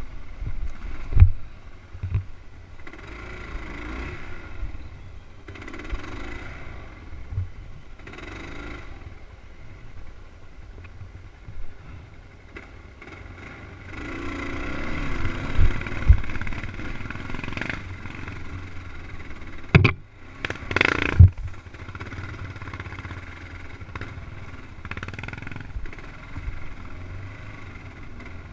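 Dirt bike engine on a trail ride, its revs swelling and dropping in repeated bursts, with a longer spell of higher revs about halfway through. Several sharp knocks come over it, the loudest pair about twenty seconds in.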